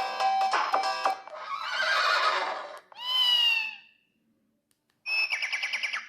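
Samsung SGH-C100 mobile phone playing its ringtones and sound effects: an electronic chiming melody that stops about a second in, then a burst of noise, a short call that falls in pitch then holds, and after a pause a quick warbling run of beeps near the end.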